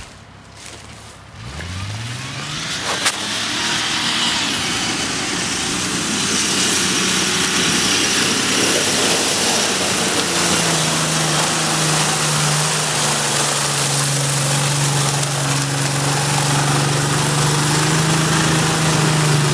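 Jeep Cherokee XJ engine revving hard as it drives through deep mud, its pitch climbing about two seconds in and growing louder as it comes near, then held at high steady revs. Tyres churn and fling mud under the engine note.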